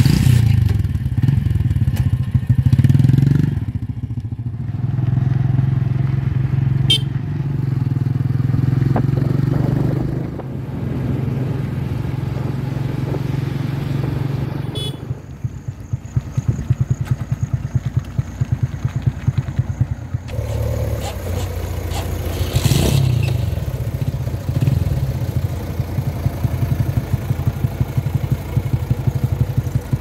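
Single-cylinder commuter motorcycle engine starting at once, then running with a few blips of the throttle for about ten seconds. It then runs steadily under way with an even, rapid exhaust putter. A brief rush of noise comes a little past the middle.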